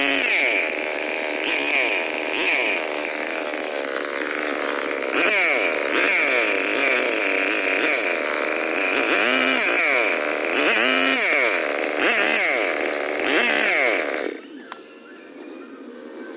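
Stihl 070 two-stroke chainsaw with a long 2.5 m bar running hard, its engine speed rising and falling again and again. It cuts off abruptly about fourteen seconds in, leaving a fainter steady sound.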